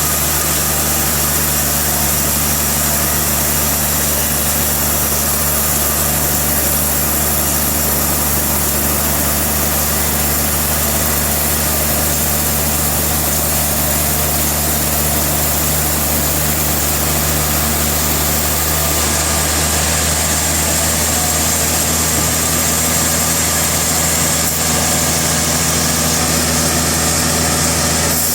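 Sawmill machinery running steadily, a constant engine drone with a high hiss over it; its tone shifts slightly about two-thirds of the way through.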